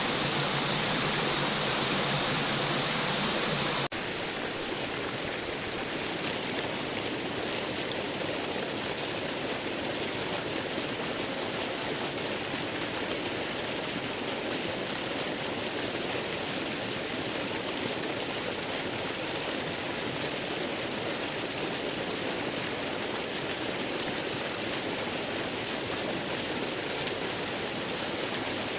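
Steady rushing water, an even hiss with no pauses. About four seconds in it changes abruptly to a brighter, hissier water sound.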